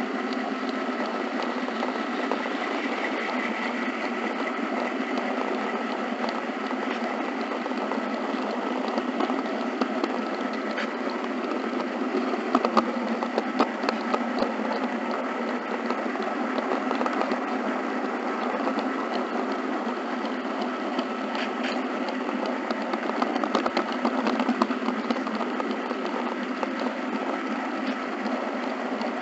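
HO scale model train running along the track, a steady mechanical whir of the small motor, gears and wheels, with scattered sharp clicks of the wheels over rail joints and turnouts, clustered about halfway through and again near the end.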